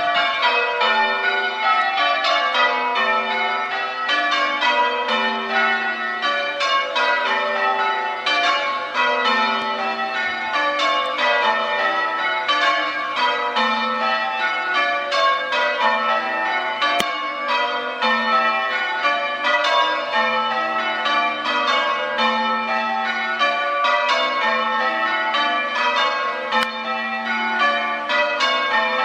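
Change ringing on a ring of six church bells: a continuous, even stream of bell strikes. Heard in the ringing room directly below the bells, where they are very loud.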